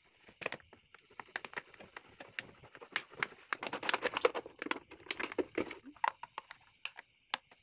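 Thin plastic water bottle crackling and clicking irregularly as it is squeezed and handled.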